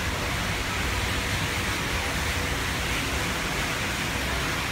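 Steady rushing background noise with a heavy low rumble and no distinct events.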